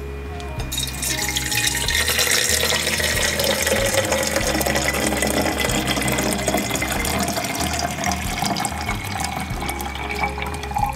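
Water being poured into a stainless-steel gooseneck kettle. It starts a little under a second in as a steady splashing, and the pitch rises slowly as the kettle fills.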